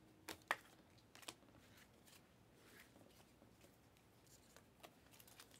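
Near silence broken by a few short sharp clicks of basketball trading cards being flipped through by hand, mostly in the first second and a half.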